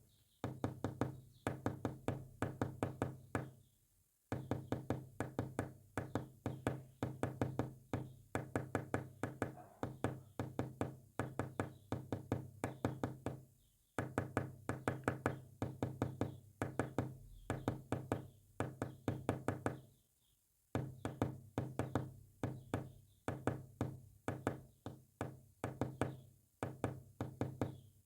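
Morse code tapped out as rapid knocks, each with a brief pitched ring, in long runs broken by short pauses.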